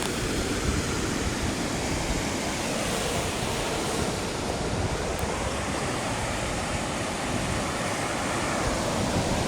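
Ocean surf washing in steadily on a beach, with wind blowing across the microphone.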